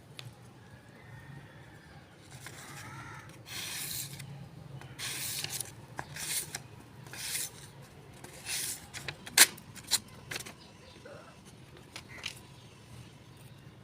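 Several short rasping scrapes of a knife blade drawn across a sharpener, followed by a few sharp metallic clicks.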